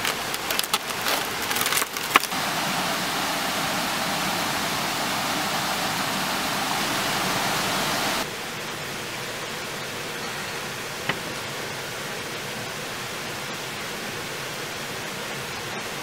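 Heavy rain pouring steadily, with aluminium foil crinkling as it is unwrapped in the first two seconds. About eight seconds in, the rain drops suddenly to a softer, duller level.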